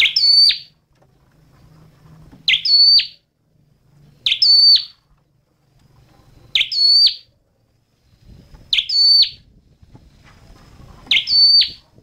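Tailorbird singing: a short, sharp, loud call repeated six times, about every two seconds.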